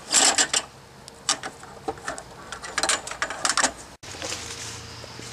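Handling noise: scattered clicks, knocks and rustles as a handheld camera is moved and set down on the ground. About four seconds in, an abrupt cut gives way to a steady low background hum.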